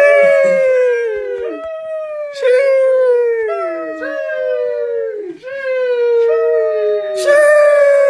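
The 'sheesh' meme sound effect: a voice drawing out 'sheeeesh', each one opening with a hiss and then sliding down in pitch, repeated over and over. A new one starts about every second, overlapping the one before.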